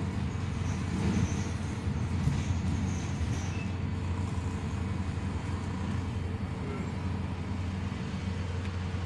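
Cabin sound of a Volvo B290R city bus under way: a steady low engine drone with road noise.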